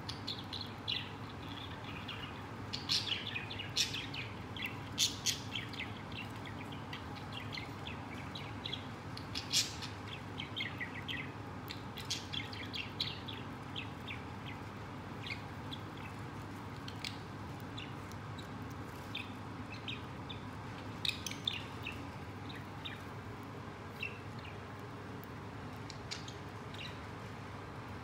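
Budgie feeding on a millet spray: short, sharp chirps and crisp seed-cracking clicks in scattered bursts, busiest in the first half and again about two-thirds of the way through.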